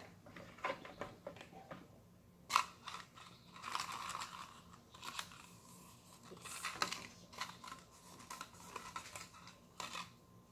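Faint scattered clicks, scrapes and rustles of tabletop handling: a plastic spoon stirring slime in a plastic cup, with small plastic cups and paper slips being handled.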